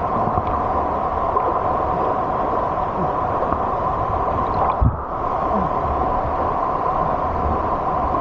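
Waterfall's water rushing steadily, with a brief dull knock about five seconds in.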